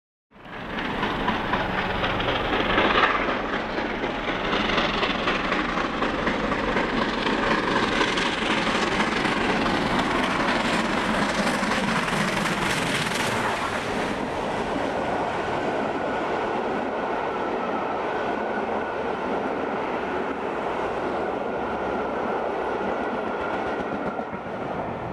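Bulleid Battle of Britain class three-cylinder 4-6-2 steam locomotive Tangmere passing hard at work with its train, loudest about three seconds in. After about fourteen seconds the engine has gone by and the coaches run steadily past over the rails, fading near the end.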